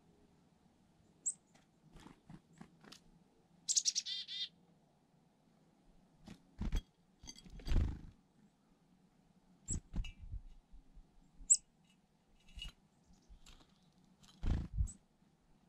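Black-capped chickadees calling: short, high, sharp chips at intervals, and about four seconds in a quick run of buzzy "dee" notes. Several dull low thumps come in between, a cluster of them near the end as a chickadee lands at the seed-filled teacup.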